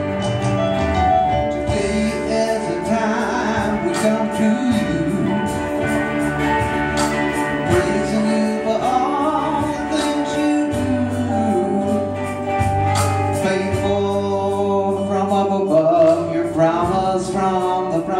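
A live worship song: a man singing over electric guitar and band accompaniment.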